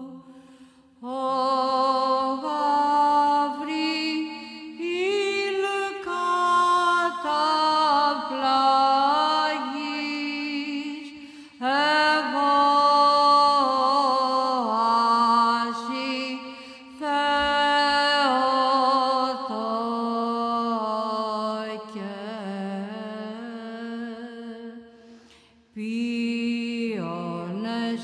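Unaccompanied sung chant: a voice sings slow, melismatic melodic phrases with a slight waver, pausing briefly between phrases.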